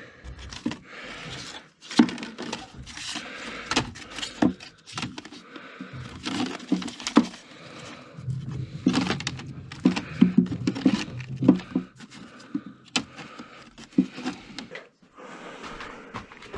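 Old records being sorted by hand in a box: paper sleeves and cardboard rustling, with frequent irregular sharp knocks and clacks as discs and box are handled.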